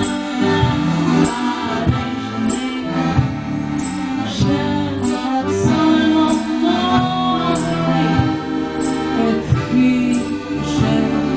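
A woman singing a song live with accordion accompaniment, over a steady beat of light high ticks.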